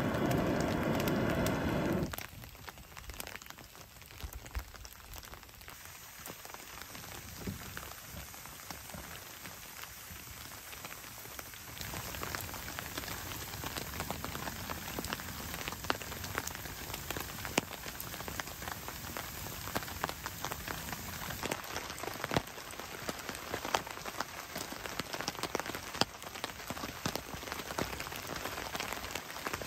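Steady rain falling, with many sharp raindrop ticks, growing louder about twelve seconds in. It opens with a loud, steady sound lasting about two seconds.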